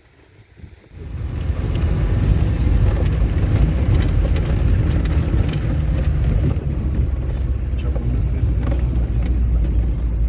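Land Rover on the move: a loud, steady low rumble of engine and rough track with scattered rattles and knocks, starting suddenly about a second in.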